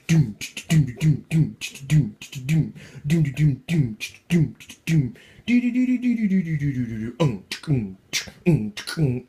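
A voice beatboxing a quick dance rhythm: short falling vocal syllables and mouth clicks about three a second, broken by one long held sung note about halfway through.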